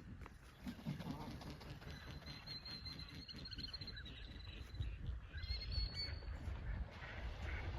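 Sandhill crane calling, over a constant low rumble, with a thin high steady note from about two to four seconds in.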